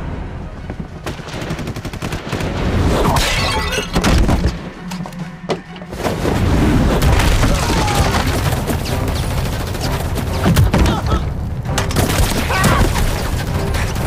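Movie battle-scene sound: rapid gunfire and explosions over a dramatic music score, with a brief lull about five seconds in before the shooting picks up again.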